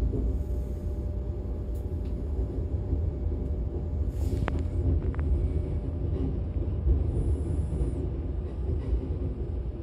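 Inside a DB Class 425 electric multiple unit under way: a steady low rumble of the train running on the track, with a few faint clicks and squeaks about four to five seconds in.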